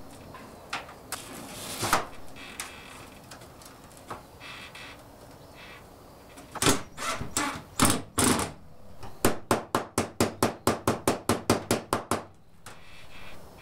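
Tapping on Galvalume steel roofing sheet: a few scattered knocks, several louder strikes a little after halfway, then a quick, even run of about twenty light taps, some six or seven a second, that stops about a second before the end.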